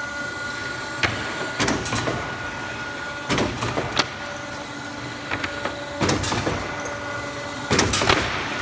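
Plywood box buckle machine running: a steady hum from its hydraulic power unit, broken by sharp clacks and knocks every second or two as the plywood panels are pressed and fed through, with a cluster of them near the end.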